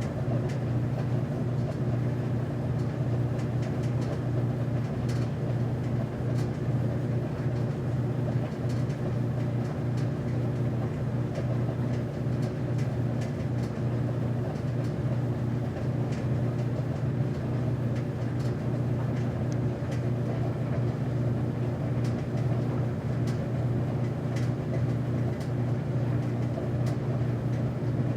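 Commercial laundromat machine's motor running and its drum revolving: a steady low hum with several steady tones above it and faint ticks scattered throughout.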